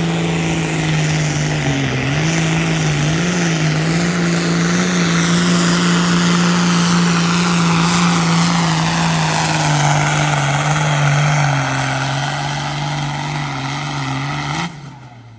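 Ford farm tractor's diesel engine running flat out under heavy load as it drags a weight-transfer pulling sled, with a steady pitch that wavers briefly a few seconds in and sags slightly later as the load builds. The engine sound falls away sharply near the end.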